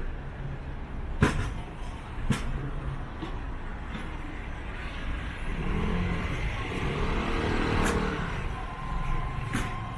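A car drives past over a steady low street rumble. It swells from about the middle and fades near the end. Two sharp knocks come about a second and two seconds in.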